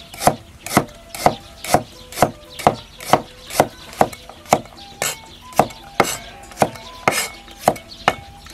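Chinese cleaver chopping peeled garlic cloves on a round wooden chopping block: steady, sharp knocks of the blade on the wood, about two a second.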